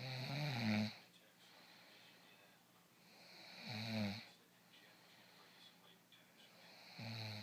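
A person snoring: three loud snores about three and a half seconds apart, each one building to a peak and then cutting off, with soft breathing in between.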